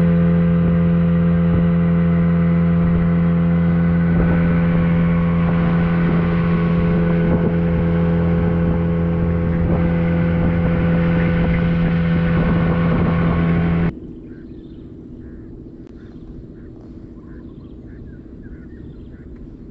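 Small outboard motor running steadily at cruising speed, pushing a small boat across a lake, a constant droning tone. About fourteen seconds in it cuts off abruptly, leaving a much quieter low hum with a few faint small clicks.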